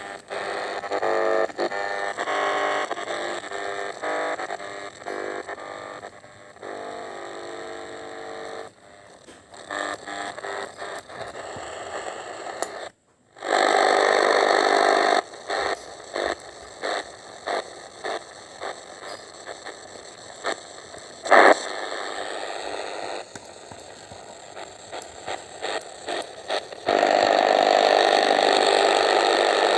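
A radio being tuned across the dial: hissing static that jumps abruptly in level as stations come and go, with whistling tones that slide slowly in pitch and frequent crackles. It drops out briefly about 13 seconds in.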